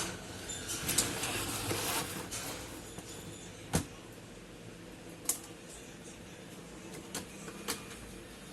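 Rustling handling noise for the first couple of seconds, then four separate sharp clicks spread over the rest, over a faint steady hum.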